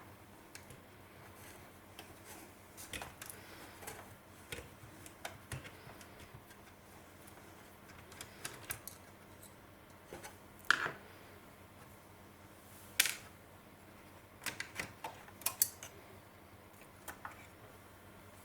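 Hands working on an open cassette deck: scattered small clicks, taps and clatter of parts and tools. The loudest are two sharp knocks about 11 and 13 seconds in, followed by a quick run of clicks.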